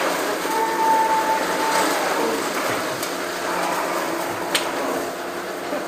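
Steady background hiss, with a sharp knock about four and a half seconds in as a Madura cow steps onto the platform of a steel-cage livestock scale.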